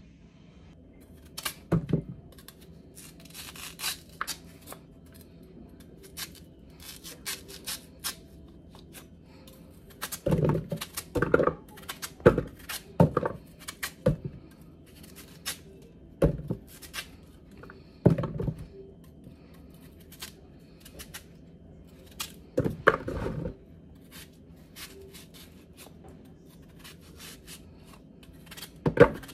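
Kitchen knife cutting peeled eddo root held in the hand: irregular crisp clicks and cuts, with several louder knocks scattered through.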